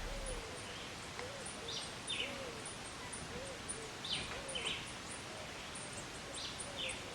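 Birds calling in the open: short, high chirps every second or so over faint, soft, low arched calls and a fine high ticking.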